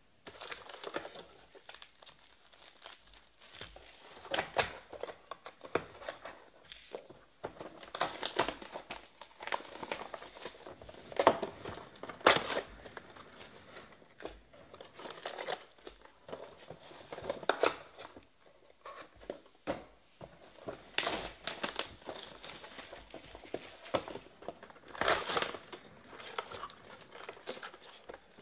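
Trading-card pack wrappers crinkling and tearing as packs are pulled from the box and ripped open by hand, in irregular bursts, the loudest near the middle.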